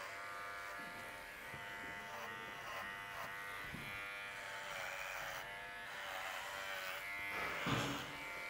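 Electric horse clippers running with a steady buzz while trimming a pony's face; the pitch dips briefly several times.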